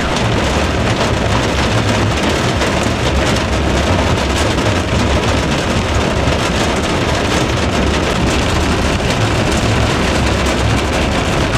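Extremely heavy rain pounding steadily on a truck, heard from inside the cab, with the vehicle's rumble and water spraying up as it drives through floodwater.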